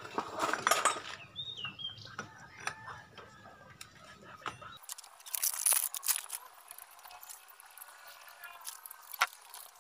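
Light metallic clinks and scrapes of motorcycle clutch parts being fitted by hand: an UMA Racing hyper clutch hub slid onto the clutch shaft of a Yamaha Sniper 150 engine, then friction plates stacked into the basket.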